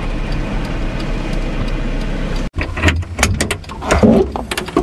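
Car running, heard from inside the cabin, a steady even noise that stops abruptly about halfway through. A quick run of sharp clicks and knocks follows, from the car door being opened.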